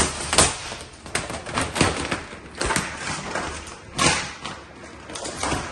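Large sheet of cast vinyl wrap film crinkling and rustling as it is pulled and smoothed by hand over a boat hull, in irregular sharp crinkles.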